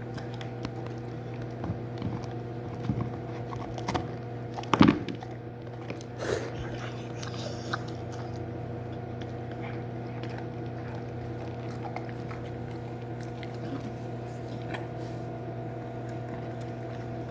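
A dog chewing and crunching a hard gingerbread dog cookie, with scattered sharp crunches, the loudest about five seconds in, over a steady hum.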